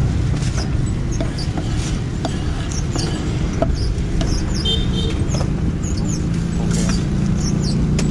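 Outdoor roadside ambience: a steady low rumble of traffic and wind, with many short high chirps that fall in pitch, and a few sharp knocks.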